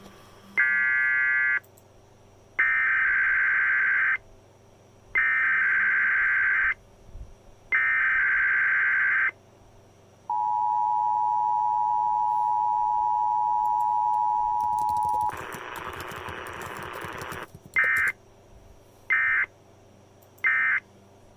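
Emergency Alert System tones: three buzzy SAME data header bursts, then the steady two-tone attention signal held for about five seconds, a couple of seconds of static hiss, and three short end-of-message data bursts near the end.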